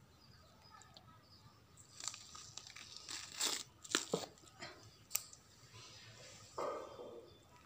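Skin being pulled and torn off a country chicken by hand: a run of ripping and crackling with a few sharp snaps, starting about two seconds in, and one more short tearing sound near the end.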